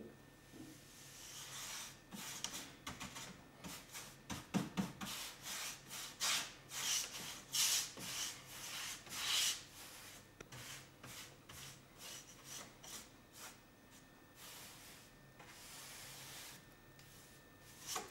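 Paintbrush working linseed oil paint onto a tongue-and-groove wooden panel: a run of repeated rubbing strokes, heaviest in the middle and lighter near the end.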